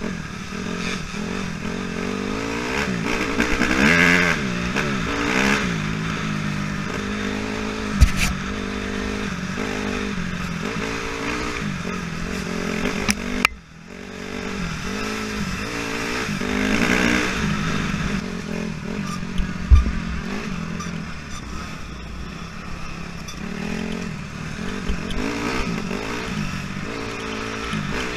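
Honda CRF250R four-stroke single-cylinder dirt bike engine heard from the bike itself, revving up and down over and over as the throttle is worked along a rough trail. Two sharp knocks come as the bike hits bumps, and the sound drops out briefly about halfway.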